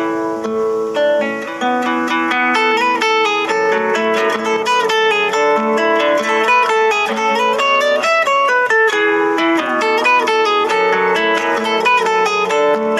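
Instrumental music played on a plucked string instrument: a flowing melody over a steady run of rippling accompaniment notes.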